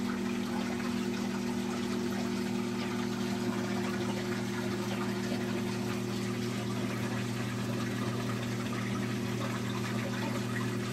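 Aquarium water pump humming steadily, with a continuous hiss of moving water.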